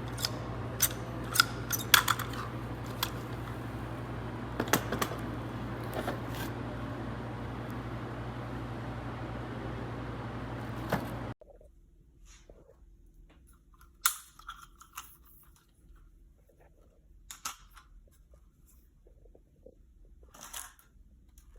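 Scattered sharp clicks and knocks over a steady low hum and room noise. The hum cuts off abruptly about eleven seconds in, leaving only a few faint ticks and rustles.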